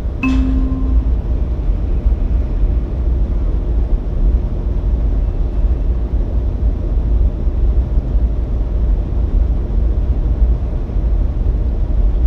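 A loud, steady low rumble, with a brief short tone and click about a quarter second in.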